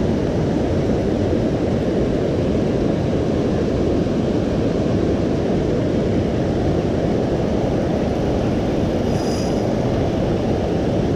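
Steady low rushing noise of a fast-flowing river, with no pauses or changes.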